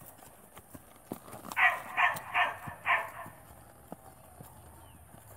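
A colt walking under saddle on a dirt arena, its hooves giving soft, scattered clops. About a second and a half in come four short, loud sounds in quick succession, louder than the hoofbeats.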